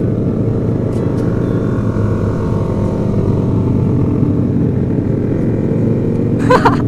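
Motorcycle engines running steadily during a group ride, heard from an onboard microphone along with a dense low rumble of wind and road. Faint pitch glides come from engines changing speed.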